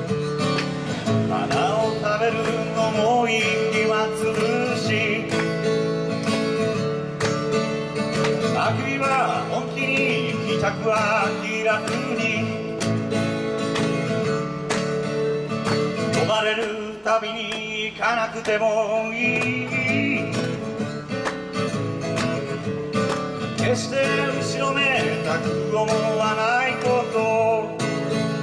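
Solo acoustic guitar, strummed and picked in a country-blues style, with a man's voice singing over it in phrases that come and go.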